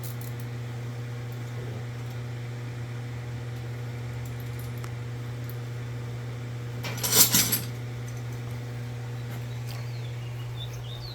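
A steady low hum, with a short clatter of metal about seven seconds in and a few faint chirps near the end.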